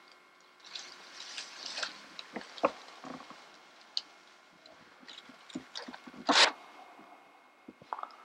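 Footsteps and brush in dry leaves and undergrowth: scattered crunches, snaps and rustles, the loudest a rustle lasting about half a second around six seconds in.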